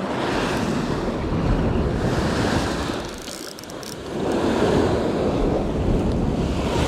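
Sea waves surging in twice, with a lull between, and wind buffeting the microphone.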